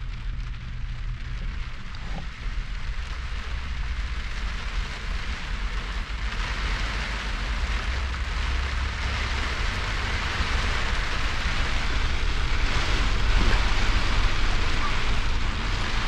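Heavy rain pounding on the truck's roof, heard from inside, growing heavier from about six seconds in, over a steady low rumble.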